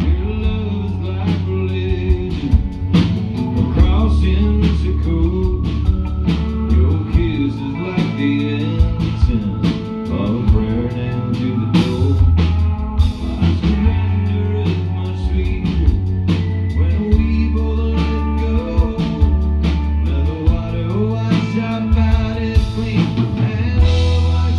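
A country-rock band playing live: electric guitar, electric bass and drum kit with a steady beat, and a man singing lead.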